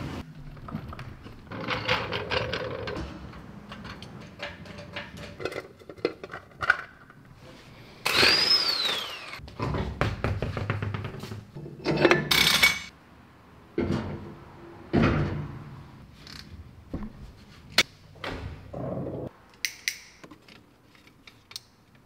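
Metal clunks and knocks of a steel hub-dyno adapter being handled and fitted onto a truck's rear wheel hub, along with tool handling. Two louder, harsher bursts come about eight and twelve seconds in, the first with a whine that falls in pitch.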